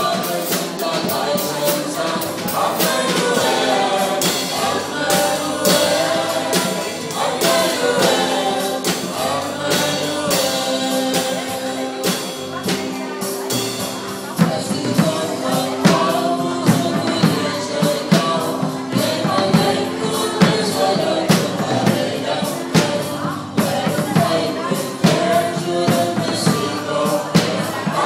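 Acoustic drum kit played along with a gospel worship song with group singing, the sticks striking drums and cymbals in a steady beat. The drumming gets heavier about halfway through.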